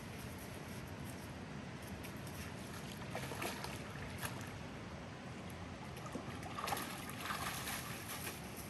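Steady rush of river water, with light splashing and stone clatter from dogs wading in the shallows: a little about three seconds in, more from about seven seconds.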